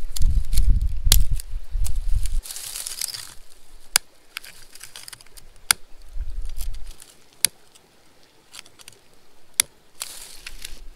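Dry grass and twigs rustling as they are packed into a fire lay, with a low rumble in the first two seconds. A long-nosed utility lighter is then clicked again and again: four sharp clicks about two seconds apart, with fainter ticks between them. The lighter is failing to light the tinder.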